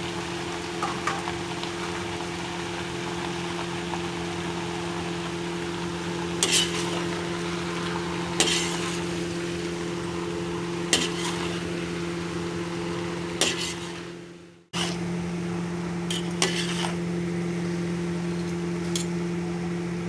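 Chow mein being stir-fried in a pan: a steady low hum throughout, with a metal utensil clinking against the pan every few seconds. The sound cuts out for a moment about two-thirds of the way in.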